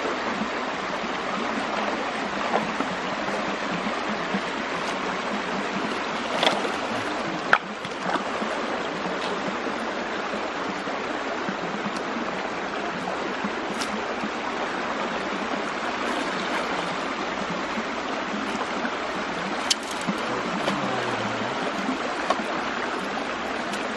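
Shallow stream water running and rippling steadily, with a few short sharp clicks or splashes, the loudest about seven and a half seconds in.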